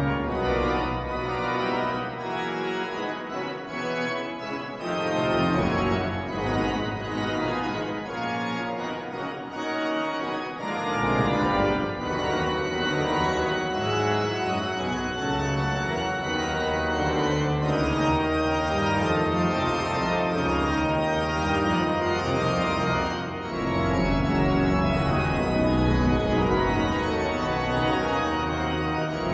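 Durham Cathedral's pipe organ playing loud, dense chords. The deep pedal bass drops out twice and comes back in each time, holding steady for the rest.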